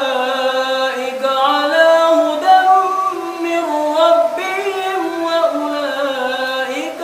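An imam's melodic Quran recitation in prayer: one man's voice chanting in long held notes that step and glide from pitch to pitch, with no pause.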